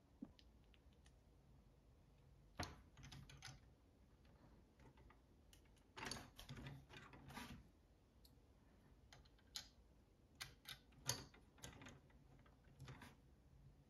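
Hard plastic Lego bricks clicking and rattling as they are handled and pressed onto a Lego Technic launcher to add weight. The clicks come in a few short clusters with quiet gaps between, the densest about six seconds in.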